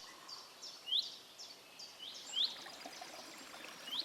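Small birds chirping: a string of short notes, the loudest a quick rising chirp repeated about every one and a half seconds, over faint outdoor hiss.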